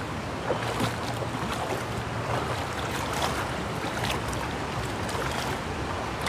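Shallow river water rushing and lapping close by: a steady wash with a few faint splashes, and wind on the microphone.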